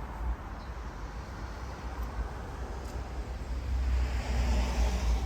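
Steady low rumble of wind on the microphone, with traffic-like noise that grows louder about four seconds in, typical of a passing vehicle.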